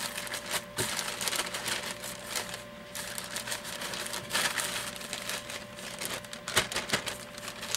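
Dry breadcrumb, flour and parmesan coating mix being stirred in a bowl: irregular scratchy rustling and scraping, with a few sharp taps, one about a second in and two close together near the end.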